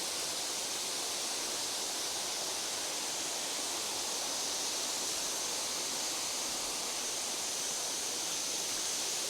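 Steady rush of a waterfall's stream, an even wash of water noise with a thin, steady high tone held over it.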